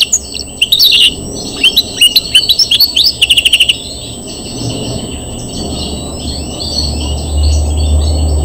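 European greenfinch singing: loud, fast rattling trills of quick repeated chirps, easing after about four seconds into quieter continuous twittering.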